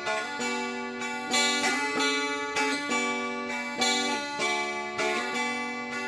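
Mountain dulcimer played on its own, plucked melody notes over a steady drone string.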